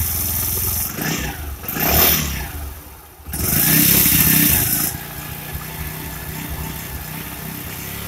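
Bajaj single-cylinder four-stroke motorcycle engine, air-cooled, running with its valve tappets freshly adjusted, without the tappet tick. It is blipped briefly about two seconds in, revved harder for a second or two a little later, then settles to a steady idle.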